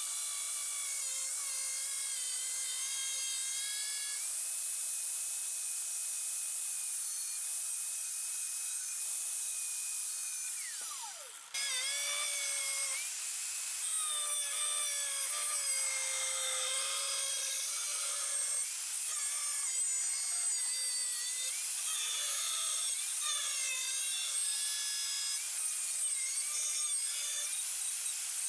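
Angle grinder with a cutting disc cutting 2.3 mm steel plate: a high whine over a hiss of grinding. About eleven seconds in, the motor winds down with falling pitch, then starts again at once and cuts on, its pitch wavering under the load of the cut.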